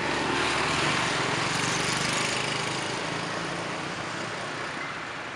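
A small motorbike engine passing close by, its sound fading slowly as it moves away, with other motorbikes riding on the street.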